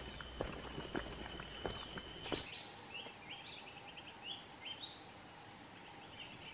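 Footsteps crunching through grass and undergrowth, then an abrupt change to a bird's song: a quick series of short chirping notes, several a second.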